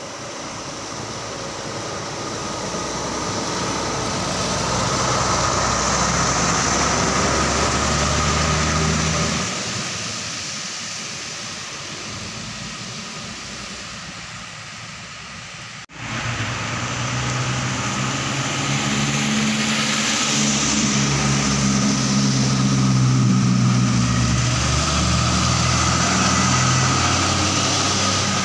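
Heavy trucks' diesel engines running as a convoy passes on a wet road. The first truck swells slowly to a peak and then fades; after an abrupt break the sound comes back loud as a tanker truck passes close by.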